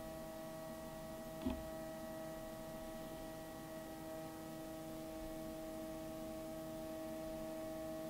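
Sony 6000ES laser projector's cooling fan running at its ramped-up second fan profile: a steady hum with several fixed tones. A short knock sounds about a second and a half in.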